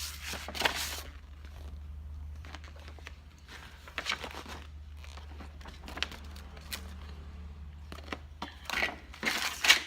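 Paper and plastic packaging rustling and crinkling irregularly as items are handled and moved about in a box, loudest about a second in and near the end.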